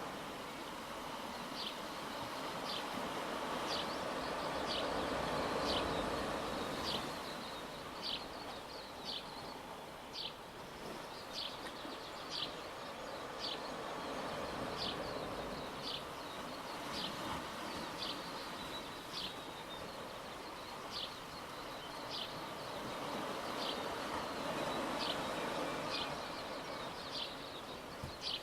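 Small waves washing gently, swelling and easing over several seconds, with a short high chirp repeated about once or twice a second throughout.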